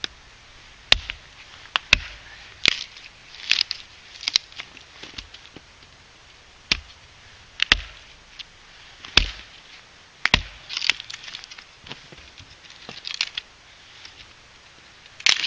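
Small axe chopping and splitting wood on a chopping block: about a dozen sharp, irregular strikes, some followed by a brief rasp as the wood parts.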